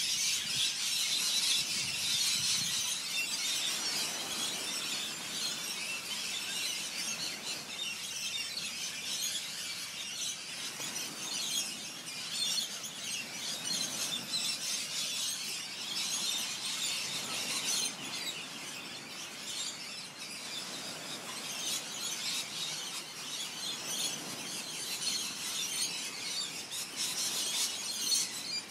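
A flock of cockatoos screeching without a break, many harsh calls overlapping into one continuous din.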